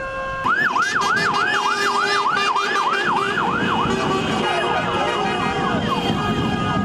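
Electronic siren yelping, about three quick rising-and-falling sweeps a second. From about four seconds in, several sirens and horns sound at once, with falling wails and held tones over the noise of traffic.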